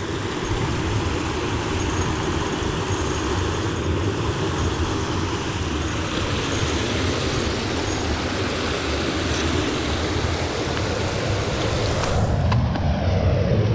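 Steady rushing of flowing creek water, a little louder near the end.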